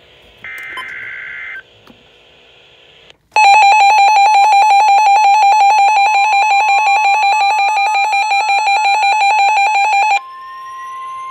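NOAA Weather Radio emergency alert: a second-long burst of screechy SAME header data tones, then a loud, rapidly pulsing electronic alarm tone for about seven seconds, followed by the steady single-pitched weather radio warning alarm tone. A fainter whistle rises slowly in pitch behind the alarms.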